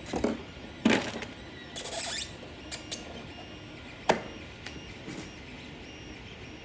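A few sharp knocks and clicks with a short stretch of rustling and scraping about two seconds in, like objects being handled, over a faint steady background hum.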